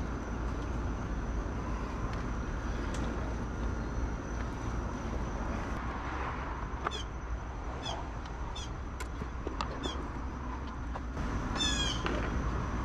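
Several short, high-pitched animal calls, the longest near the end, over a steady low background hum, with a few light clicks.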